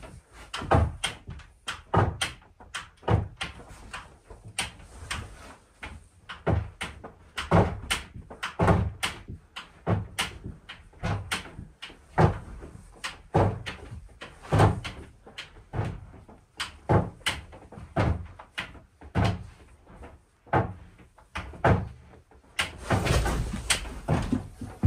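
Repeated heavy wooden knocks and thuds, irregular, roughly one every half second to a second, with a denser, louder clatter near the end.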